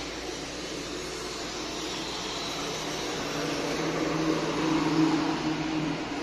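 Vehicle engine hum over a steady din of road traffic; the hum grows louder about three seconds in, peaks around five seconds, then eases off.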